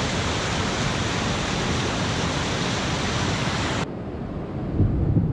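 River whitewater rushing over a rock ledge, a steady full rush of water. It cuts off abruptly nearly four seconds in, leaving a low, uneven rumble of wind on the microphone.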